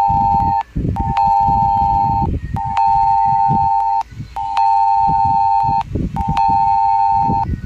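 Tornado warning alarm: a single steady tone repeating in long beeps, each over a second long with short gaps, about five of them, over a rough low rumbling noise.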